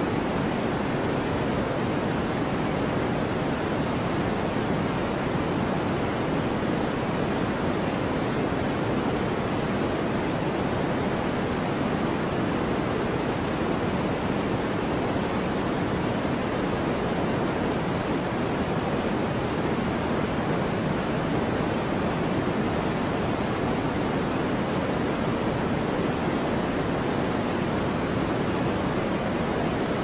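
Steady, unchanging white noise for sleep, weighted toward the low end so it sounds like a deep, even hush, with no breaks or changes in level.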